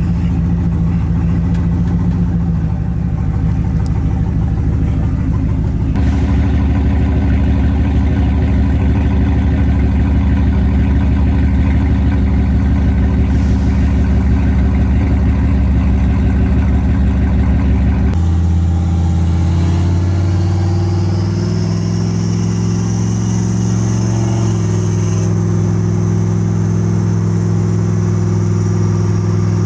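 Turbocharged GMC Sierra V8 running, its engine note shifting to a new steady pitch about six seconds in and again past the middle. A high whine rises from about two-thirds of the way through and then holds.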